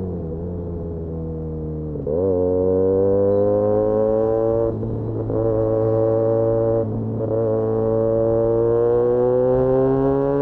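Benelli 302S's 300 cc parallel-twin engine through an Austin Racing titanium aftermarket exhaust, running steadily at first, then opening up about two seconds in and pulling with a slowly rising note. The note breaks off briefly twice, and the throttle closes right at the end.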